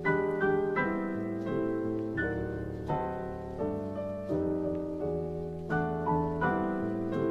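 Background music: piano notes struck about once every two-thirds of a second over held low notes.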